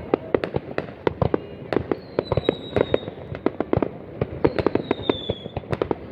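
Fireworks going off in a dense, irregular string of sharp bangs and pops, with a high whistle falling slightly in pitch about two seconds in and another about four and a half seconds in.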